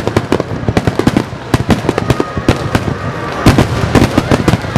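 Fireworks display: a rapid barrage of bangs and crackling reports, many a second, getting heaviest about three and a half seconds in.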